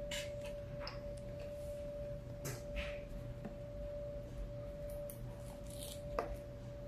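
Soft eating and handling sounds: a lettuce-filled soft taco being picked up off a foam plate with a few short crackles, then a crisp bite about six seconds in. A steady high tone runs underneath throughout.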